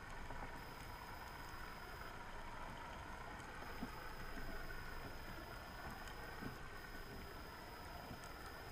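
Steady underwater noise picked up through an underwater camera's housing over a seagrass bed, with a thin high steady whine and a few faint scattered clicks.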